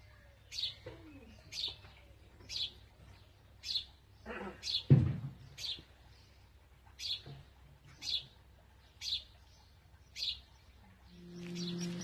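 A small bird chirping over and over, short high chirps at roughly one a second. About five seconds in comes a single louder, lower sound, and near the end a steady low hum sets in.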